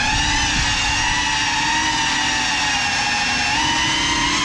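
Indoor FPV drone's motors and propellers whining steadily over a rough rushing noise, the pitch wavering slightly and rising a little near the end.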